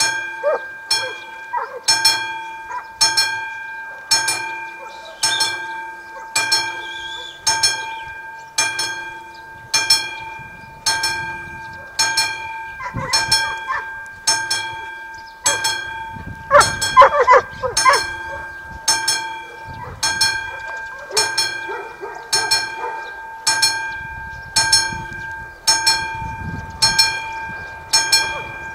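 Level-crossing warning bell of the classic type on AŽD 71 signals, struck about every 0.8 seconds with each ring hanging on into the next, sounding the warning for an approaching train. A low rumble of the oncoming train builds in the last few seconds.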